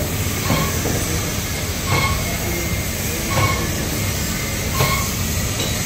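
Compact single-colour reel-to-reel flexographic printing machine running: a steady mechanical rumble, with a short metallic clink that repeats about every one and a half seconds.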